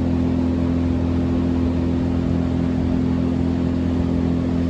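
An engine running at a steady speed, an even drone with no change in pitch or level.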